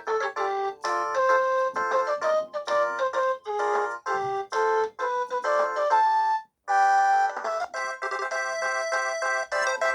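LG G7100 mobile phone ringtones: a synthesized tune of quick notes, often several at once, ends about six and a half seconds in, and after a brief gap a different ringtone tune begins.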